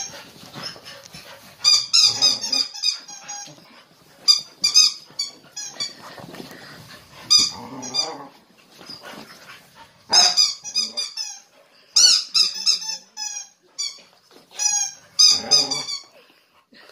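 Green spiky rubber squeaky ball squeaking in short runs of quick, high squeaks every two or three seconds as puppies bite and chew it.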